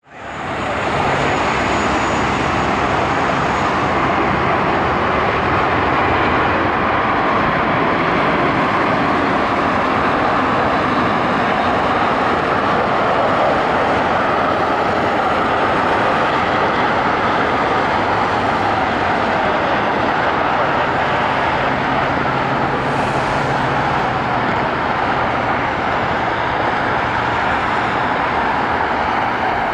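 Jet engines of an Airbus A321-200 airliner, a steady noise with no let-up as it makes a low approach, flares and touches down.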